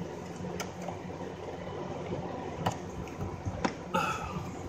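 A few sharp clicks and knocks of metal parts and tools being handled at an engine's AC compressor mounting, over a steady hum, with a brief squeak near the end.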